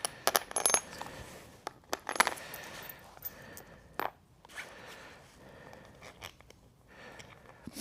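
Several sharp metallic clicks and light clinks, a few with a brief high ring like small metal pieces dropping, with quieter handling and rustling noise between them.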